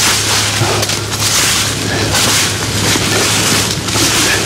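Wolf-Garten Multi-Change soil rake's curved tines scraping and rustling through dry leaf litter and twigs on soil, in repeated strokes about once a second.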